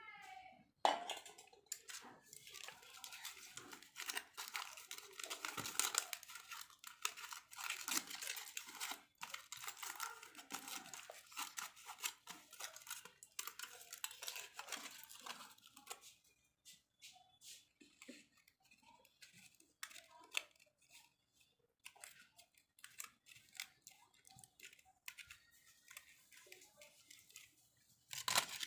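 Aluminium foil being torn off and crinkled in the hands: dense crackling for the first half or so, sparser after that, and busy again near the end.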